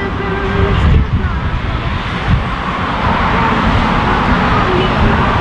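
Street traffic: a steady rush of passing cars.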